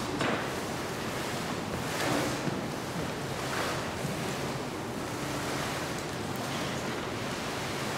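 Long fabric train of a gown dragging across the floor, a steady swishing rush with a few soft swells.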